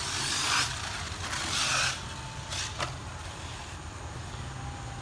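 RC car running on a dirt track: two short rushes of hiss in the first two seconds and a sharp click a little before the three-second mark, then a steady low rumble.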